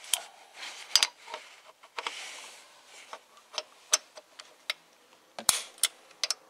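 Socket wrench clicking on the pulley bolts as they are tightened in turn to 25 Nm: irregular sharp metallic clicks, a few louder ones about a second in and again about five and a half seconds in, with a short rasp of ratcheting around two seconds in.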